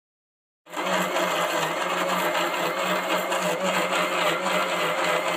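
Electric mixer grinder (mixie) running steadily at speed, blending jackfruit bulbs with water into a pulp in its steel jar. It starts suddenly under a second in, after a brief silence, with a steady motor hum.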